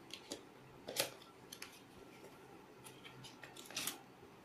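Cardboard box being opened and its packaging handled: faint scattered scrapes and taps of card, the sharpest about a second in, and a short rustle near the end.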